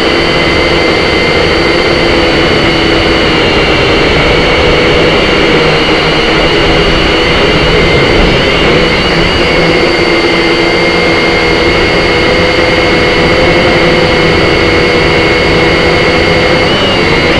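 Syma X5SC toy quadcopter's four small electric motors and propellers, heard close up from its own onboard camera: a loud, steady whine of several tones, drifting slightly in pitch as the throttle changes in flight.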